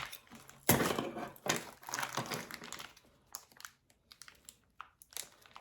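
Plastic packaging bag crinkling and rustling as it is handled and opened, busiest in the first half, followed by a few light clicks.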